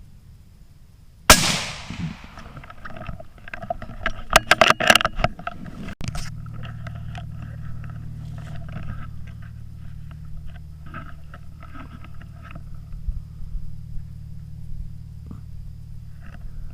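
.17 HM2 rifle shot about a second in, followed by a few seconds of rustling, crackling clatter. Then a steady low hum runs on.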